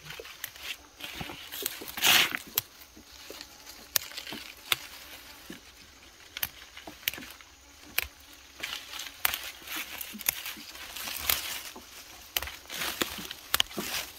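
Fern fronds and undergrowth rustling and swishing as edible fern shoots are picked by hand, with frequent sharp snaps of stems being broken off. The loudest swish comes about two seconds in.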